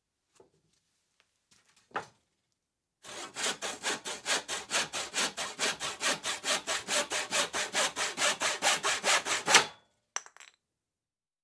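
Hand saw cutting through wood in quick, even rasping strokes, about four or five a second for some six seconds, then stopping sharply. A click comes before the sawing and a short clatter after it.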